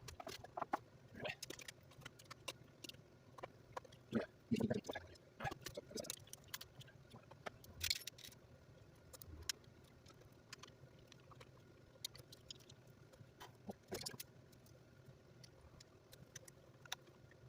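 Irregular small clicks, taps and light knocks of hand tools and plastic and metal radio-controlled car parts being handled and worked on, with a few heavier knocks about four to five seconds in.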